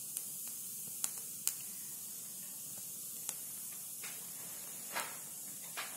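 Flaxseed papad roasting on the hot plate of an electric roti maker: a faint, steady sizzling hiss with a sharp crackle roughly once a second.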